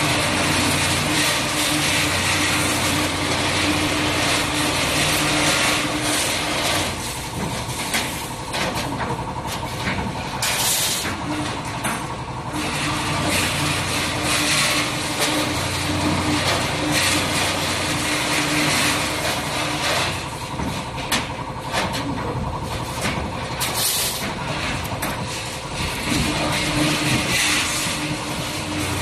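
KT5-14F CNC rebar stirrup-bending machine working through its bending cycle. A motor hum runs for several seconds, drops away and comes back in a repeating cycle, with a short hissing burst about a third of the way in and another a little past the middle.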